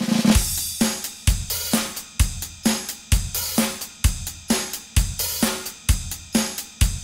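Background music with a steady drum-kit beat: kick and snare with hi-hat and cymbals, a strong stroke about every half second.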